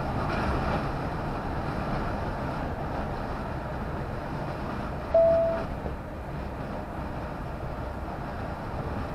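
Steady engine and tyre noise of a heavy vehicle driving at motorway speed, heard from inside the cab. About five seconds in, a single short electronic beep sounds for about half a second.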